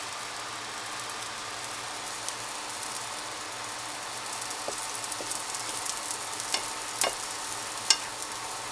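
Pancake batter sizzling in a nonstick frying pan: a steady hiss with small crackles. Near the end come a few sharp clicks of a spatula against the pan.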